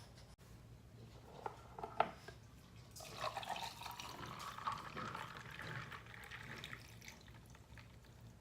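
A few light clinks, then liquid poured into a cup for about four seconds.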